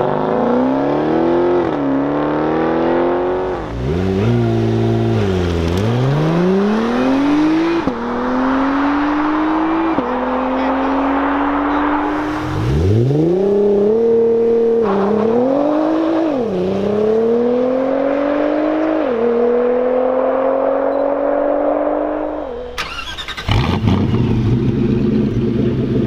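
A Dodge Charger SRT's V8 accelerating hard from the start line, its note rising and dropping back at each of several upshifts. A Nissan GT-R's twin-turbo V6 then launches and pulls through its gears the same way. Near the end a deeper engine runs steadily.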